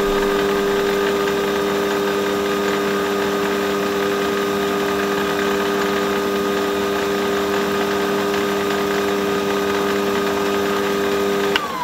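Metal lathe running at speed: a steady hum of several held tones over a whirr. Near the end it is switched off and the whine falls in pitch as it spins down.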